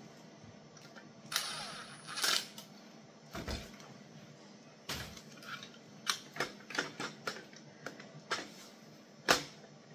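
Plastic parts of a GE Mac2000 ECG machine being handled and fitted together: a short scraping rustle, then a string of sharp clicks and knocks of plastic on plastic, the loudest knock near the end.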